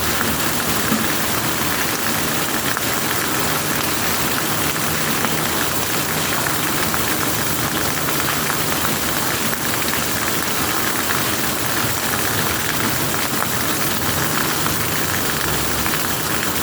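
Steady, even rain with a low hum underneath.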